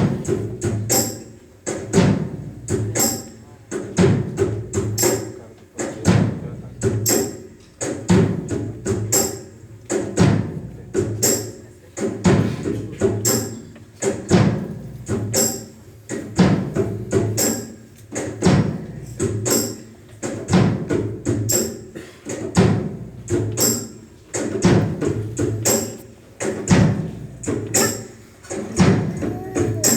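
Music with a steady, evenly repeating percussive beat, strongest about every two seconds, with sharp high jingling strokes.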